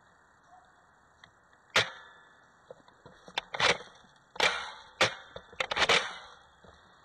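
Z37 Zombie Siege toy airsoft rifle firing a string of single shots: sharp snaps, the first about two seconds in, then six or so more at uneven spacing over the next four seconds, the last ones coming quickly together.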